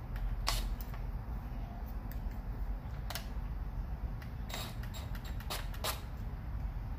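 A cordless drill being handled and positioned without running: a few sharp, irregular clicks and light knocks over a low steady rumble.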